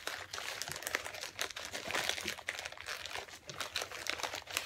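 Plastic bags crinkling and crackling continuously as small packets of diamond painting drills are pushed and squeezed into a gallon-size zip-top bag.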